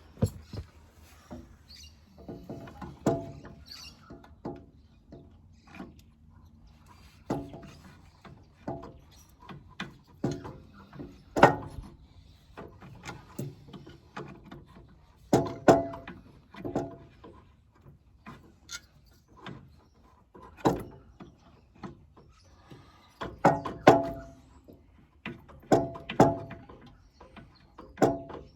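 Irregular metallic clanks and knocks, several ringing briefly, as an alternator and its mounting hardware are handled and fitted to a backhoe engine.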